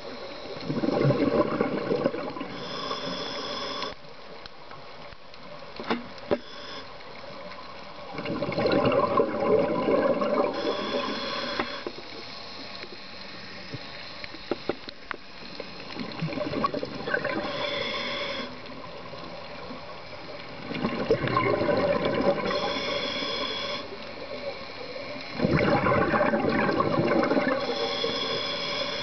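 Scuba breathing heard underwater through a demand regulator: about five rushing bursts of exhaled bubbles, several seconds apart. Each exhale is followed by a thin high hiss from the regulator on the inhale.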